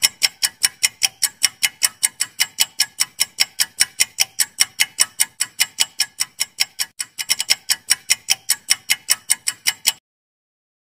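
Clock-tick sound effect of a quiz countdown timer: fast, even, loud ticking at about five ticks a second, with a short run of quicker ticks about seven seconds in, then it stops suddenly near the end.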